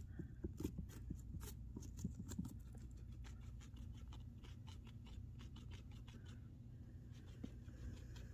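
A pet chewing carrot: rapid, crisp crunching bites, thickest in the first couple of seconds, over a low steady hum.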